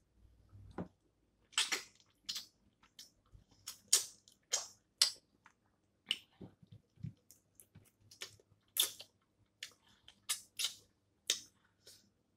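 Snow crab legs being cracked and eaten close to the microphone: irregular sharp shell cracks and snaps with chewing and slurping between them.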